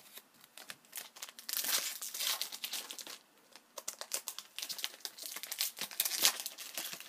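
Hockey card pack wrappers crinkling and rustling as they are handled and opened, in irregular bursts that are loudest about two seconds in and again near the end.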